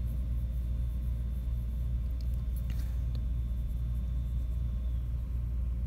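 Steady low rumble of room background with a faint thin high tone that stops about five seconds in, and a couple of faint scratches of a coloured pencil on paper near the middle.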